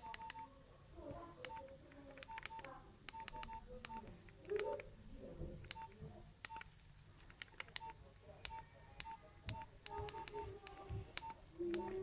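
Nokia 6310 keypad keys pressed one after another at an uneven pace, each press a faint click, most followed by a short electronic key-tone beep.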